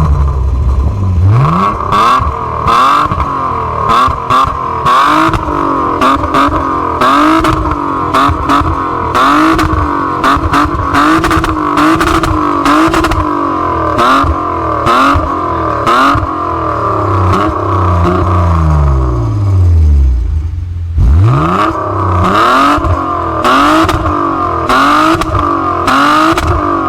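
BMW E36 325i's straight-six engine with its stock exhaust, loud, its revs rising and falling repeatedly. About two-thirds of the way through the revs fall away and then climb again. Frequent short, sharp crackles sit over the engine sound.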